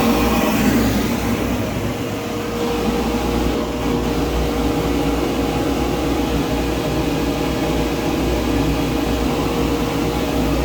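Electric polishing buffer running steadily, a constant motor hum with a steady tone over it.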